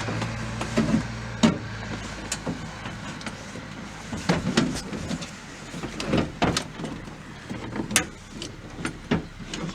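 Scattered clicks and knocks of parts and tools being handled inside a minivan's sliding door, with a low steady hum for about the first second and a half.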